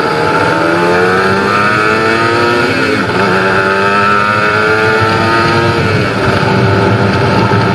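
Kawasaki Ninja 150RR's two-stroke single-cylinder engine accelerating while riding, its pitch rising through the gears and dropping sharply at gear changes about three seconds in and again near six seconds.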